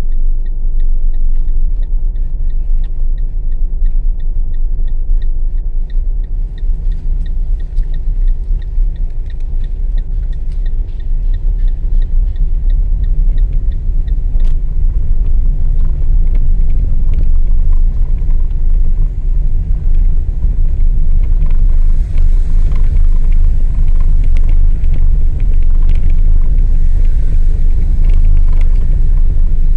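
Car driving over cobblestone paving, heard from inside the cabin: a loud, steady low rumble of tyres and engine, growing louder in the second half. A regular light ticking runs through the first half.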